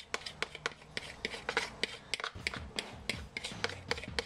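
A utensil scraping pancake batter out of a plastic mixing bowl: quick, irregular scraping strokes, several a second.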